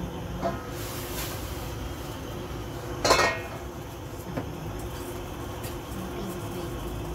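Kitchenware handling: a glass pot lid clinks with a short ring against a stainless steel pot about three seconds in, with a couple of lighter knocks around it, over a steady low hum.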